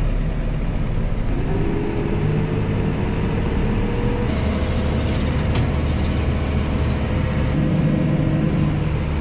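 Tractor engine running, heard from inside the cab. Its pitch climbs from about a second in and steps up again about four seconds in as the engine speeds up.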